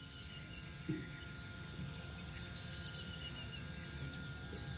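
Quiet open-air ambience: faint bird chirps over a low steady background hum, with a thin steady whine and a single soft knock about a second in.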